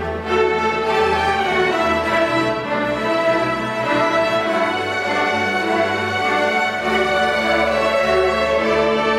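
School string orchestra of violins, violas, cellos and basses playing together, a full and continuous passage with steady low bass notes under the higher strings.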